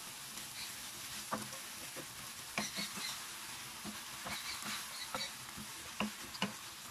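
Diced chicken sizzling gently in a frying pan while a wooden spatula stirs it. The spatula scrapes and knocks against the pan in short, irregular strokes.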